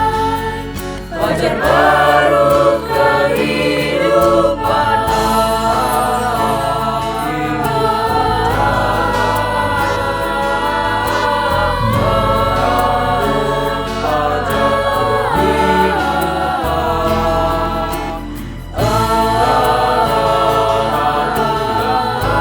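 Choir singing in several-part harmony, with sustained chords that shift pitch over a low steady bass. Near the end the sound drops briefly, then the voices come back in at full strength.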